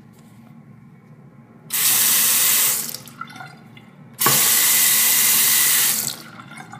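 Two-handle bathroom sink faucet turned on twice, water running from the spout into the basin. The first run lasts about a second, and the second, a moment later, lasts about two seconds. Each starts abruptly when the lever is opened and stops when it is closed.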